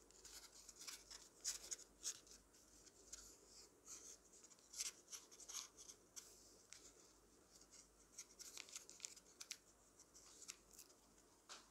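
Faint crinkling and rustling of a single sheet of origami paper as hands fold, pinch and crease it, in small irregular crackles.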